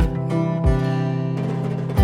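Soft acoustic background music: strummed acoustic guitar chords over a steady beat.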